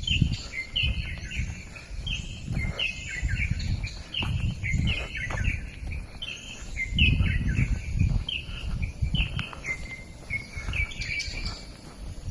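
Small songbirds chirping: many short, quick notes repeated over and over. An irregular low rumbling noise runs underneath and is the loudest part.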